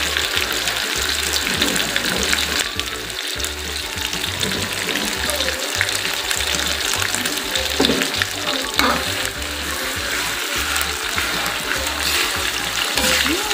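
Chili spice paste with bay leaves, lime leaves and lemongrass frying in hot oil in a wok, being fried until fragrant: a steady sizzle, with a metal spatula stirring and scraping through it.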